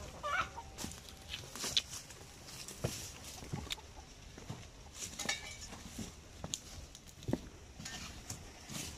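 Chickens clucking now and then, among scattered footsteps and short knocks as a shovel is carried through brush and over concrete.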